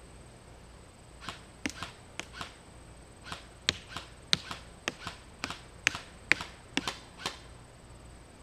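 Modified G&G Combat Machine electric airsoft rifle firing a string of single semi-auto shots, about eighteen sharp cracks at an uneven pace, some in quick pairs.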